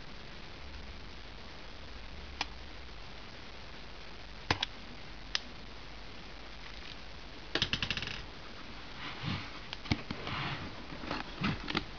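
A cardboard box being opened by hand: a few separate clicks and taps of a blade against the cardboard, a quick run of clicks about two-thirds of the way through, then cardboard scraping and rustling as the lid is worked loose.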